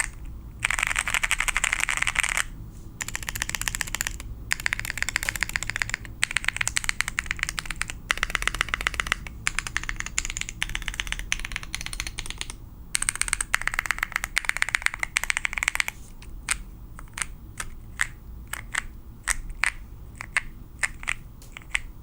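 Typing on a GK64XS mechanical keyboard with lubed Feker Panda tactile switches, an FR4 plate and KAT keycaps: fast runs of keystrokes in bursts with short pauses, giving way after about 16 seconds to slower, separate key presses about two a second.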